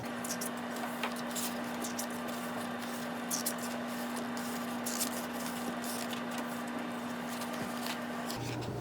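Soft paper rustling and light taps as an album's lyric book is handled, over a steady low hum.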